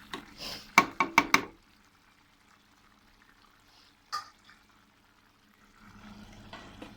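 A quick run of sharp knocks from a utensil against a cooking pan about a second in, and one more about four seconds in. Near the end, a faint pouring of a little water into the pan.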